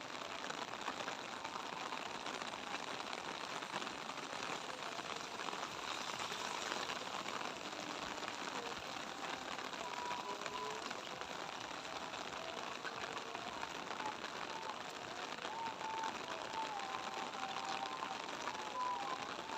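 Steady light rain falling, a dense even crackle of drops with no break.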